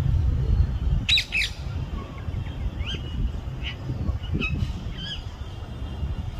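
Pet parrot making short falling 'peww' calls: two quick ones about a second in, then several more spaced out over the next few seconds, over a steady low rumble.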